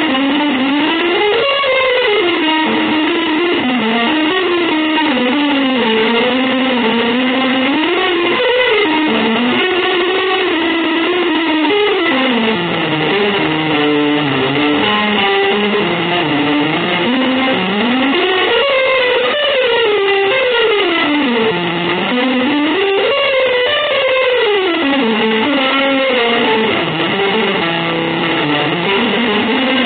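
Electric guitar playing a continuous, winding melodic line that keeps climbing and falling in pitch with sliding notes, in an avant-garde jazz style.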